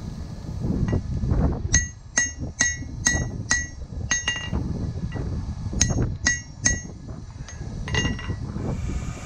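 Hand hammer striking a red-hot sword blade on a steel anvil, each blow ringing. The blows come about two a second in a few short runs, with brief pauses between them.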